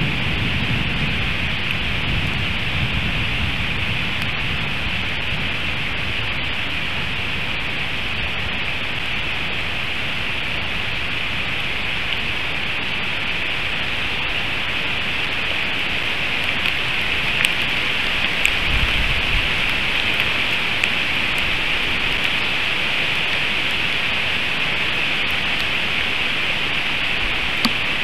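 Heavy rain from a thunderstorm falling steadily on the forest, an even hiss, with the low rumble of thunder dying away over the first few seconds. A few faint sharp ticks and a brief low rumble come about two-thirds of the way in.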